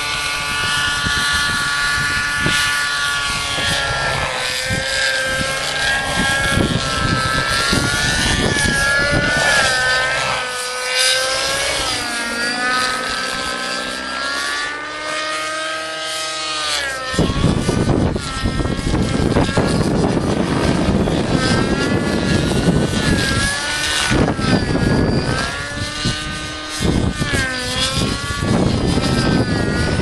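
Thunder Tiger Raptor 50 SE radio-controlled helicopter in flight: its TT 53 glow-fuel engine and rotors running, the engine's pitch rising and dipping again and again as it is thrown through manoeuvres. From a little past halfway, heavy wind rumbles on the microphone under the engine.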